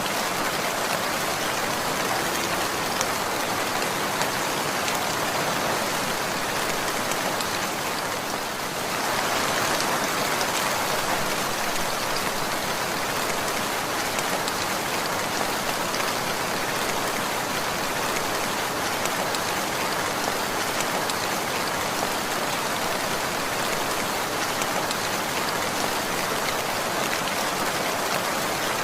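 Steady rainfall, a dense even patter of raindrops hitting a surface, with a slight dip in level about eight seconds in before it picks up again.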